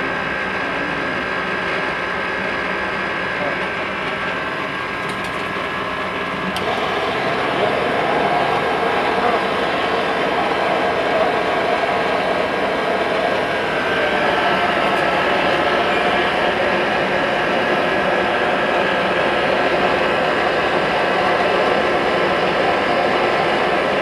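Handheld gas torch on a yellow cylinder, its flame hissing steadily while brazing copper refrigerant pipe on a compressor; the hiss gets louder about six and a half seconds in.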